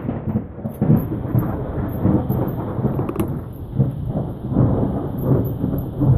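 Rolling thunder: a long, loud rumble that swells and eases several times, building again near the end.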